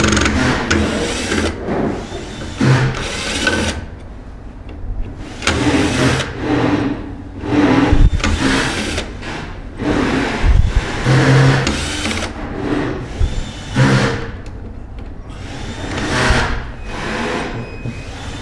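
Power screwdriver or drill running in repeated short bursts, starting and stopping as it backs out the screws holding the connection bars.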